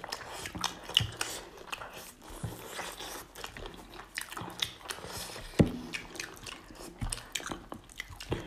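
Two people eating chicken and rice with their hands: chewing and biting with irregular short clicks and smacks, a few louder ones about a second in and past the middle.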